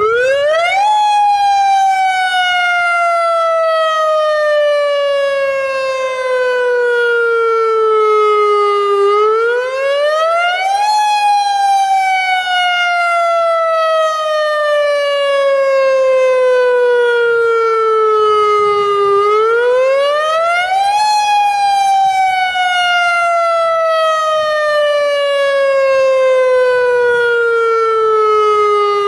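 Federal Signal Modulator AHAB tsunami warning siren sounding its wail tone, the tone used in real emergencies. It rises quickly in pitch, then falls slowly over about eight seconds, and the cycle repeats three times.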